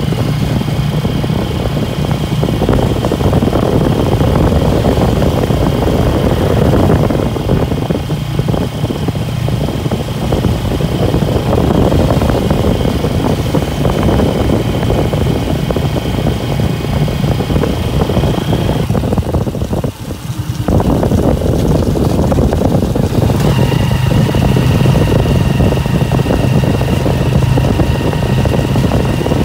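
Motorcycle engine of a Philippine tricycle running steadily while riding along, with road and wind noise. The sound drops out suddenly for about a second roughly two-thirds of the way through, then carries on.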